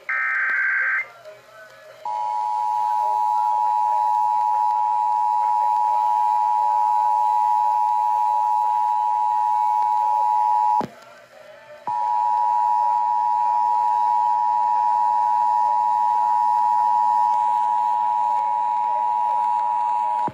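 Emergency Alert System broadcast tones: first a short burst of SAME header data, a harsh digital warble. Then the two-tone attention signal, a steady dual-tone hum at 853 and 960 Hz, which drops out for about a second midway and resumes until the end. This marks the start of an EAS test before the voice message.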